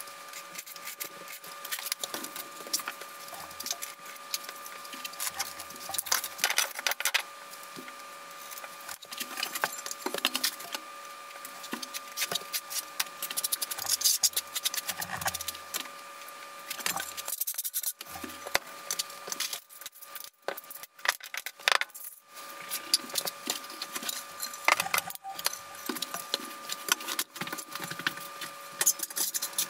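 Plastic T-Lock tile-leveling clips and wedges clicking and clattering as they are handled and set on porcelain floor tile: many short, sharp clicks in irregular runs. A faint steady hum sits underneath.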